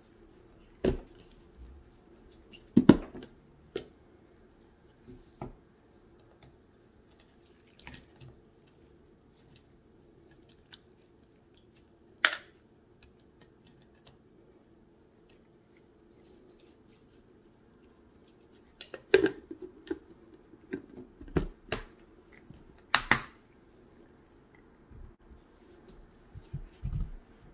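Hard plastic food container being handled: scattered sharp clicks and knocks as its snap-lock lid is unclipped and lifted and its strainer basket is raised from the liquid and set back, with a cluster of knocks about two-thirds of the way through. A faint steady hum sits underneath.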